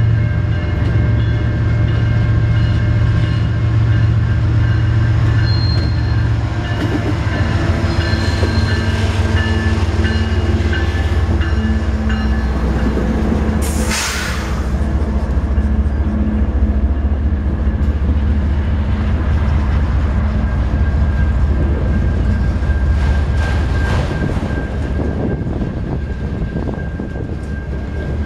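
Diesel-hauled freight train running past: a steady heavy low rumble from the locomotives, with rail and car noise and faint steady high tones above it. About halfway through there is a brief sharp burst of hissing noise.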